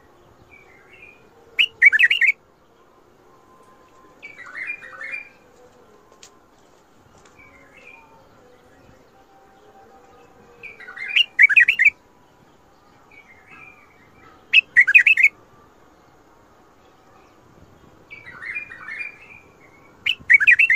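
White-eared bulbul (Iraqi bulbul) singing: six short phrases of quick, bubbly notes at irregular intervals, some louder than others, with soft chirps in between.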